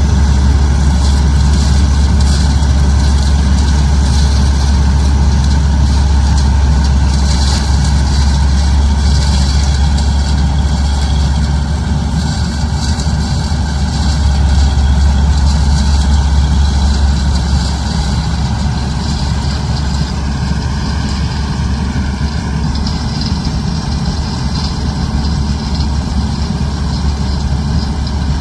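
Diesel engine of farm machinery running steadily at a low, even speed, slightly quieter about two-thirds of the way through.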